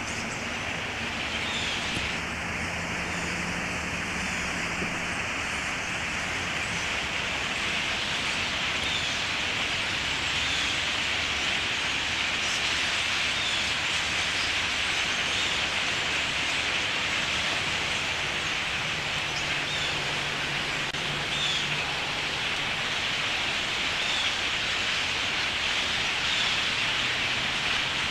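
A large flock of birds calling all at once, a dense continuous chatter with many small chirps on top, building up over the first few seconds and then holding steady.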